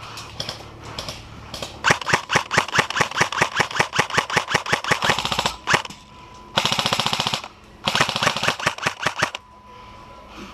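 Airsoft guns firing in rapid bursts: a long string of shots about two seconds in, then a very fast short burst in the middle and another burst after it.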